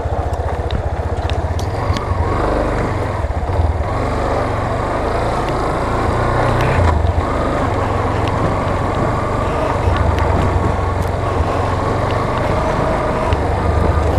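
Yamaha Fazer motorcycle riding along a dirt road: the engine runs at a fairly steady speed under a heavy, continuous rumble of wind on the microphone.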